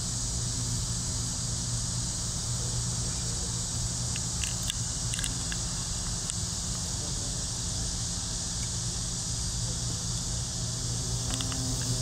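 Steady outdoor background with no clear event: a continuous high hiss over a low hum, with a few faint ticks in the middle and again near the end.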